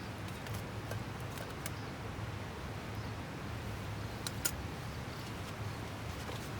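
Steady outdoor background noise with a few faint, sharp clicks or crackles scattered through it.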